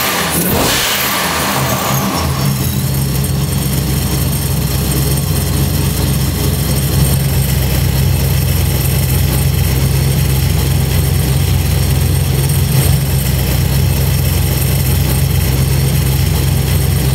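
ProCharger-supercharged 6.2 L LS V8 in a Mazda RX-7 running. Its revs flare and drop over the first couple of seconds, with a high whine falling in pitch, and then it settles into a steady idle.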